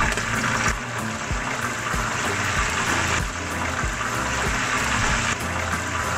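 Hot oil sizzling and bubbling steadily around a whole chicken deep-frying in a pot, with a low regular beat underneath.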